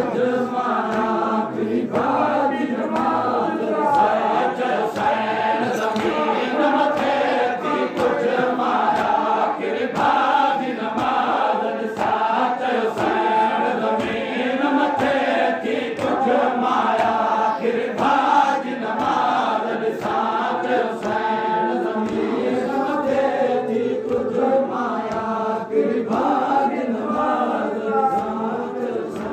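Crowd of men chanting a Sindhi noha, a Shia mourning lament, together in a loud continuous chorus, with sharp rhythmic strikes about once a second, typical of matam chest-beating.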